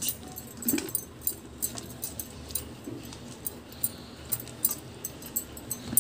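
Hand tossing damp, freshly soaked poha (flattened rice) in a steel colander: soft rustling of the flakes with light metallic clinks against the colander, in quick irregular strokes.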